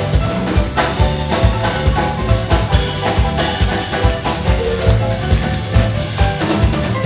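Live rock band playing, with a drum kit and bass keeping a steady beat under melodic lines.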